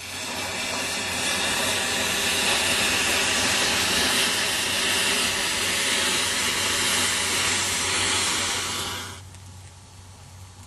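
About a thousand match heads flaring in a chain reaction: a loud, steady hiss of igniting matches that builds over the first second or two, then drops sharply about nine seconds in to a faint hiss of the matches burning.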